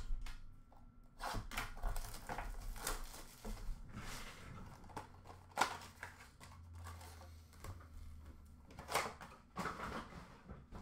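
Hands handling and opening a cardboard Upper Deck hockey card blaster box and its packs: irregular rustling and scraping with a scatter of sharp clicks and taps, a few of them louder.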